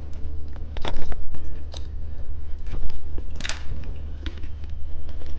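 Plastic candy packaging being handled: scattered clicks and crinkles, with two louder rustles about a second in and three and a half seconds in, over a steady low hum.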